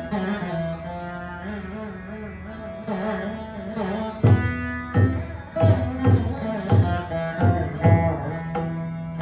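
Saraswati veena playing a Carnatic melody in Thodi raga, its notes sliding and wavering. About four seconds in, the mridangam joins with a run of deep, sharp strokes, roughly two a second.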